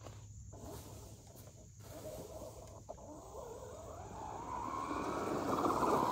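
Traxxas Hoss RC truck's brushless electric motor whining as the truck drives in, growing steadily louder from about four seconds in and peaking near the end.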